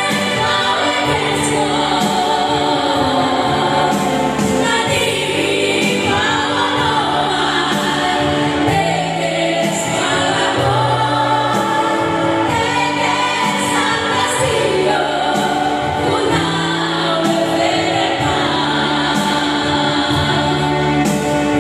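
A group of four women singing a gospel praise song together into microphones, over keyboard accompaniment with long held bass notes.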